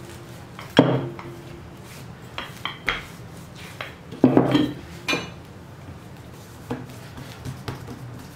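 Wooden rolling pin rolling dough out on a silicone pastry mat, then knocking against the counter as it is handled and laid aside. About half a dozen scattered clunks sound, the loudest about four seconds in.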